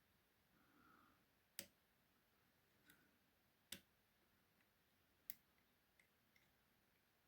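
Faint, sparse metallic clicks of piano-wire picks and a tension tool working the levers inside an ERA five-lever mortice lock: three sharp clicks about two seconds apart, with lighter ticks near the end.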